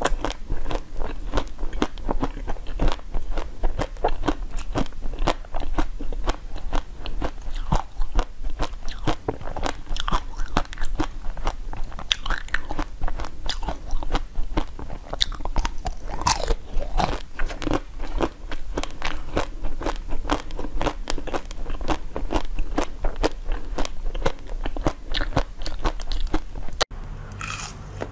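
Close-up biting and chewing of crunchy ice with basil seeds frozen into it: a dense, continuous run of sharp cracks and crunches. The crunching breaks off briefly near the end.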